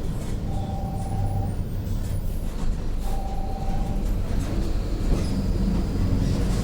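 Mercedes-Benz OF 1721 city bus under way: a steady low drivetrain drone, with a level whine from the differential that comes in twice for about a second. The differential is growling, a sign of a worn differential. Near the end the engine note rises as the bus pulls.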